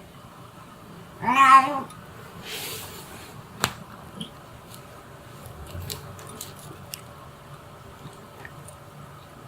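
Domestic cat giving one short, wavering murmur-meow about a second in. It is followed by a soft brushing noise, a sharp click and a few faint ticks.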